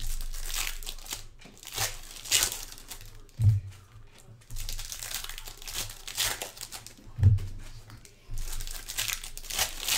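Foil baseball-card pack wrappers crinkling and tearing in bursts as packs are ripped open and handled. A dull thump comes twice, about three and a half seconds in and again about seven seconds in.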